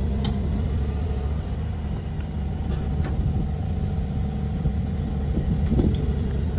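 Caterpillar 330 tracked excavator's diesel engine running steadily, a low even rumble with a few faint clicks.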